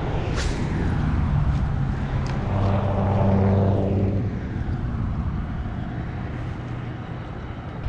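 The engine of a passing motor vehicle, a steady hum that grows louder to a peak about three and a half seconds in and then fades away. There is a sharp click just after the start.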